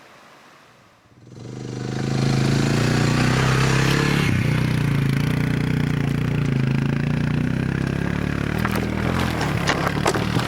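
A heavy machine's engine comes up about a second and a half in and runs steadily under load, with a few knocks and clatters near the end as logs are handled.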